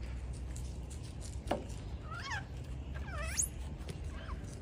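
Golden snub-nosed monkey giving a few short, high, wavering calls, about two and three seconds in, the second dipping and then sweeping steeply up; a quick falling chirp comes just before them and a faint short call near the end.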